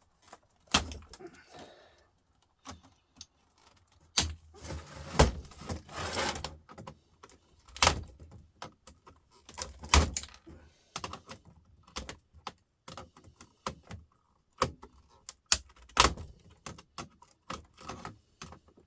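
A run of sharp clicks, taps and rattles of small metal screws and the hard plastic casing of an old laptop being worked apart with hand tools, with several louder knocks.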